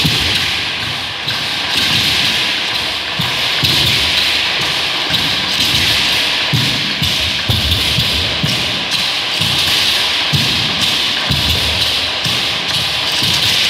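Huehuetl, a large carved wooden upright drum, beaten with sticks in a steady repeating beat of low thumps.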